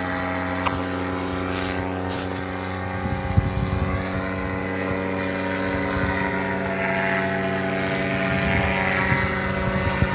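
Paramotor's propeller engine running steadily at an even pitch, with wind gusting on the microphone.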